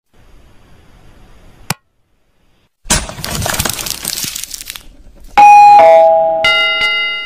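Channel-outro sound effects: a sharp click, then a crackling, shattering burst lasting about two seconds, followed by a loud two-note falling ding-dong chime and a ringing bell strike that fades out near the end.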